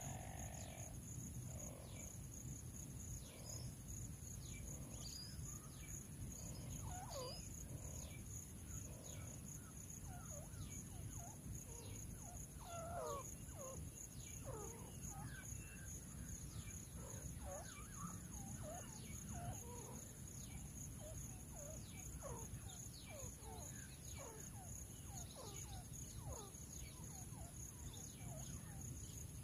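Grey francolins giving soft, short calls, scattered irregularly and at times several a second, over a steady high-pitched insect drone.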